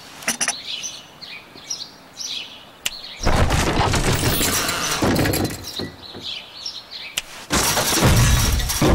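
Garden birds chirping, then a sharp click a little before three seconds in, followed by a loud rushing, clattering sound effect lasting about three seconds and a second one near the end.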